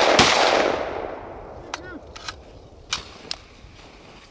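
Rock River PDS gas-piston 5.56 mm rifle firing the last two shots of a rapid string, about a fifth of a second apart, the reports echoing away over about a second. A few light metallic clicks follow.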